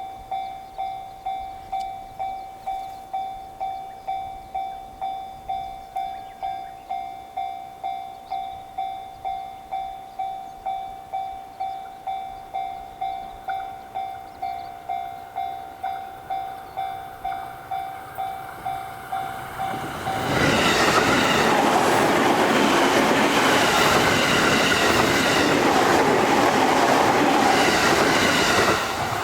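Japanese level-crossing alarm bell ringing its "kan-kan" at a steady quick beat. About twenty seconds in, a JR Sobu Line train passes over the crossing, its wheels clattering on the rails and drowning out the bell.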